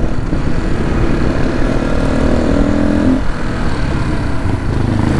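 Dirt bike engine running under way, its pitch climbing for a second or so and then dropping about three seconds in as the throttle is eased, then running on at a lower, steady note.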